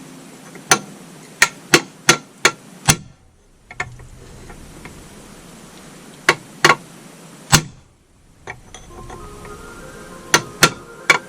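Hammer blows on metal transmission parts, sharp and ringing: a run of about six quick strikes in the first three seconds, three more a few seconds later, and another three near the end.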